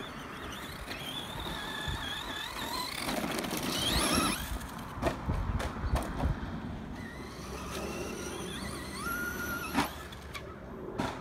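Brushless electric motor of a Traxxas Slash 2WD RC monster truck whining under throttle. Its pitch sweeps sharply upward twice as it accelerates, with a few short knocks as the truck hits the dirt.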